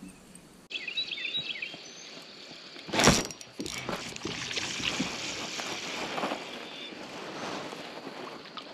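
Camera handling noise: a loud knock about three seconds in as the camera is grabbed, then steady rustling with small ticks as it is carried by hand. A few short bird chirps come about a second in.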